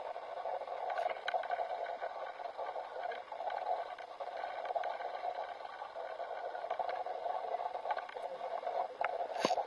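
Steady rushing noise of a small boat out on open water, with faint scattered ticks and one short sharp click near the end.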